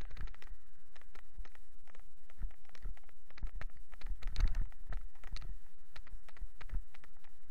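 Irregular knocks and rattles from a bicycle-mounted camera jolting over a rough road shoulder, over a low steady rumble. A louder cluster of knocks comes about four and a half seconds in.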